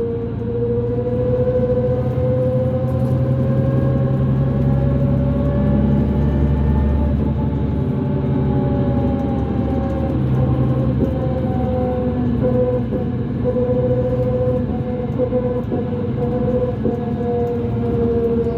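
2005 New Flyer D40LF transit bus under way: the Cummins ISL diesel and drivetrain run with a steady low rumble under a prominent high whine that climbs gently and then eases back down, the weird axle noise the bus is known for.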